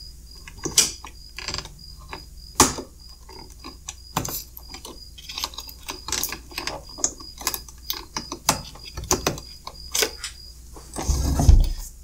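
Insulated spade connectors being pushed onto battery terminals by hand: irregular small clicks and scrapes of plastic and metal, with two sharper clicks in the first three seconds. Near the end a duller bump and rustle as the unit's case is handled.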